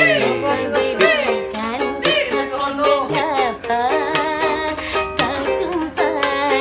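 Music from a strummed plucked-string instrument in a quick, steady rhythm, with a wavering melody line that slides up and down in pitch over it, between sung lines of a song.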